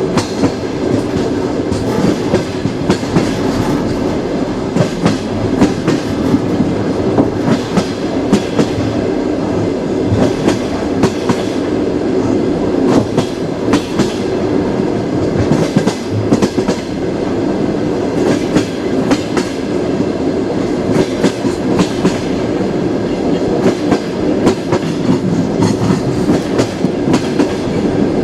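Train wheels running over the rails with a steady rumble and a frequent clickety-clack of sharp clicks as the wheels cross rail joints.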